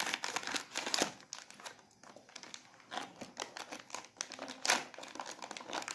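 Clear plastic packaging crinkling as it is cut with scissors and the packets inside are handled, in a run of irregular sharp crackles.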